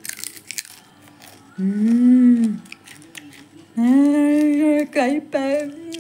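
A woman humming "mmm" with her mouth closed, most likely in appreciation of the food she is tasting: first a short hum that rises and falls about a second and a half in, then a longer, steadier hum near the end. Faint clicks come before the humming.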